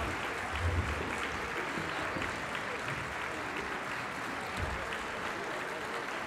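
Audience applauding steadily, with a low thump about a second in and another a little past halfway.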